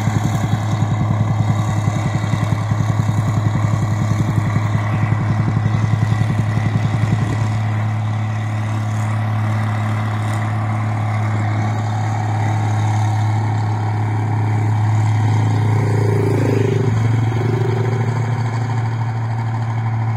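Rice combine harvester's engine running under load while harvesting paddy: a strong steady low hum, with a fast throbbing for roughly the first seven seconds before it evens out into a smoother drone.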